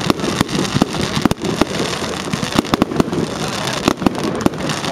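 Fireworks display: aerial shells bursting overhead in a rapid, continuous barrage of sharp bangs, several a second, over a steady crackle.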